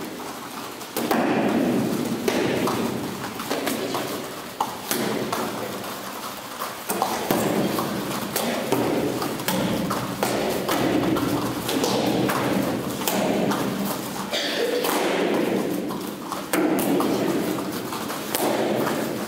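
Irregular dull thuds of bare feet stamping and landing on training mats, some sharper than others, over the steady hum of a busy hall.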